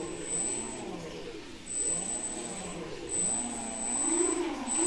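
Brushless motors of a twin-motor RC plane (3536-size, 1200 kV) spinning their propellers up and down: a whine that rises and falls in pitch about once a second, louder near the end. The throttle is being worked to check that both propellers blow air backwards.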